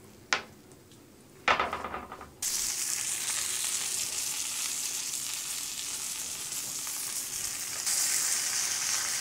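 Breaded crow fillets frying in rapeseed oil and butter, sizzling steadily; the sizzle starts abruptly about two and a half seconds in and grows a little louder near the end. Before it, a light tap and then a louder knock that rings briefly.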